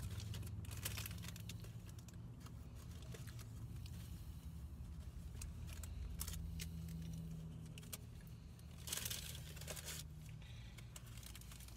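A paper food wrapper crinkling and tearing as it is unwrapped by hand, with a louder rustle about nine seconds in. Under it is a low, steady hum in the car's cabin.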